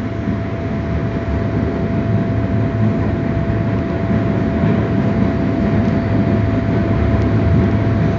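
Passenger train running at speed, heard from inside the carriage: a steady, loud rumble of wheels on rail with a thin constant whine over it, the train passing through a tunnel.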